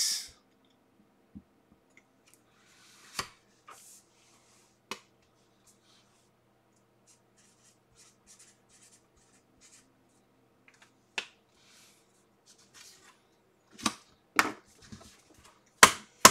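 Paper envelopes and cards being handled on a tabletop: scattered soft rustles and about half a dozen sharp clicks and taps, the loudest coming near the end, over a faint steady hum.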